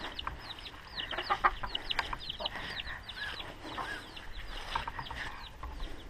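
Farmyard poultry calling: a rapid string of short, high, falling peeps, several a second, with a few lower calls among them.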